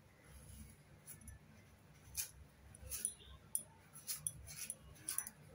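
Faint crisp cutting strokes of an upright boti blade shaving thin strips of peel off a peeled giant arum (maan kochu) tuber; a run of short scrapes begins about two seconds in.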